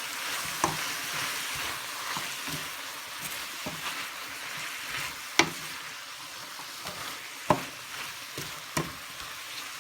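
Vegetables sizzling in hot oil as they are stir-fried in a pan, with a handful of sharp knocks of the stirring utensil against the pan, the loudest about five and a half seconds in.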